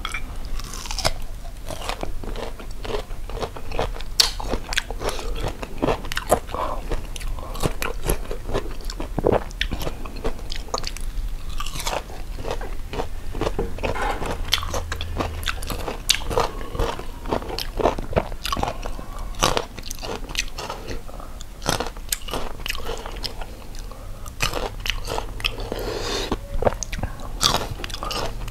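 Close crunching and chewing of crisp unripe green mango dipped in chili salt: repeated sharp crunches as it is bitten and chewed.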